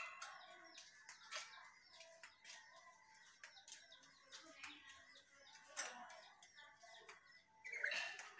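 Lory (a small parrot) with faint scattered clicks and taps throughout, and one short squawk near the end.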